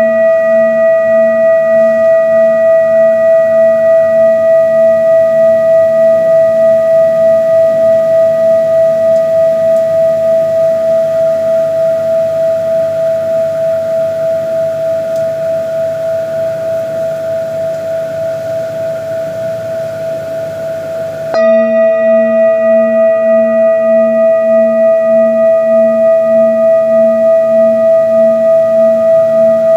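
A sustained ringing tone with overtones and a slow wavering pulse about twice a second. It fades gradually, then comes back at full strength suddenly about two-thirds of the way through.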